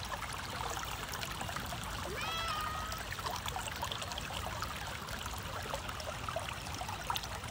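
Shallow river running over a gravel and pebble bed: a steady rush and trickle of water. A short pitched call, likely from a bird, sounds once a little over two seconds in.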